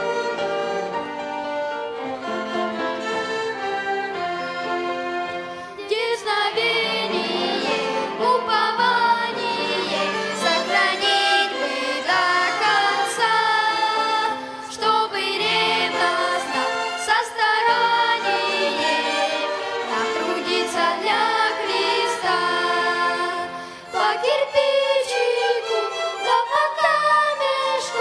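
A violin ensemble plays a hymn. About six seconds in, singing voices join the violins and carry on with them.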